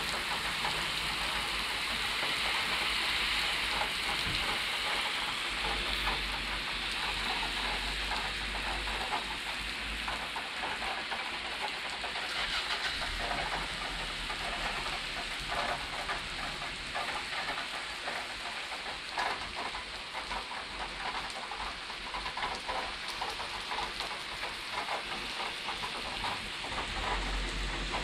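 Steady rain falling during a thunderstorm, with many separate drops tapping close by.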